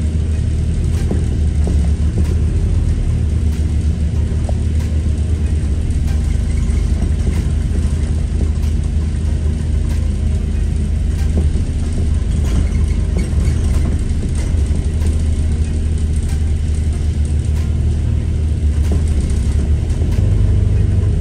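Cabin noise of a bus: a steady low engine drone with rattling and creaking from the bus's fittings. The drone steps up near the end.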